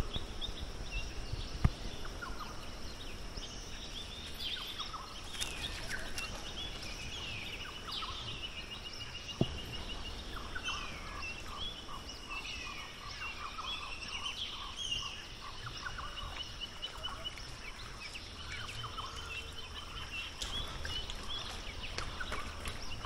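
Rainforest birds calling: a mix of chirps, rapid runs of repeated notes and whistled glides, over a steady high-pitched hum.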